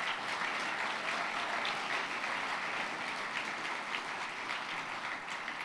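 Audience applauding steadily, dense hand-clapping that eases off slightly near the end.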